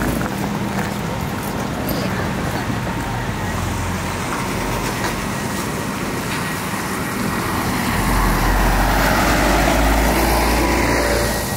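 Street traffic on a wet road: a car passes with a rising hiss of tyres on the wet surface and a low engine rumble, loudest about eight to eleven seconds in, then fading near the end.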